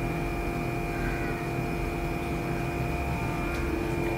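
Steady droning hum with a few constant tones over a low rumble.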